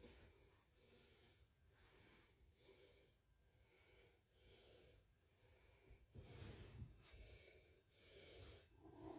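Near silence: faint room noise with a soft, regular rise and fall.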